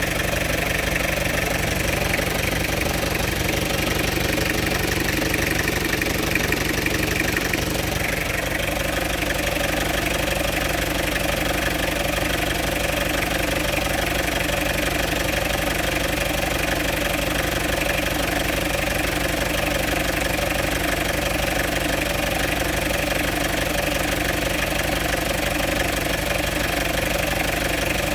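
Toyota 2C-T four-cylinder turbodiesel idling steadily, with an extraneous noise in its running that the owner cannot place; its note shifts slightly about eight seconds in.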